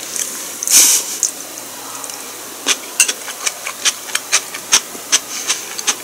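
Close-up chewing of food: a short breathy hiss about a second in, then from about the middle a run of sharp, crisp mouth clicks, two or three a second.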